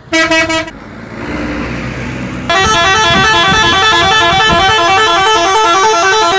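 Tour bus's multi-tone 'telolet' musical air horn playing quick runs of stepped notes. A short burst at the start is followed by about two seconds of bus engine noise, then the horn starts again about two and a half seconds in and plays a loud, continuous repeating melody.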